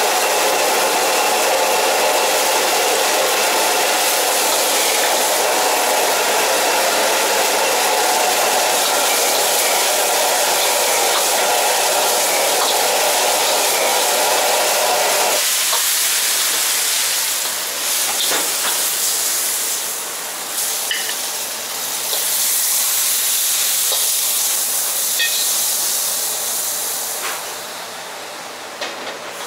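Commercial gas wok burner running at full flame under a wok of stir-frying duck, a loud steady hiss with food sizzling. About halfway through the lower part of the noise stops abruptly, leaving a steadier hiss with a few sharp metal clinks.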